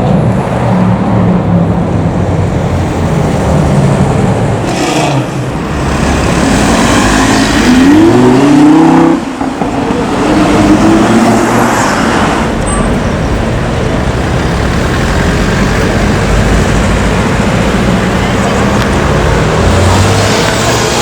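Sports car engine accelerating hard amid street traffic, its pitch climbing for about two seconds before cutting off abruptly about nine seconds in, then rising again. Steady traffic noise runs underneath.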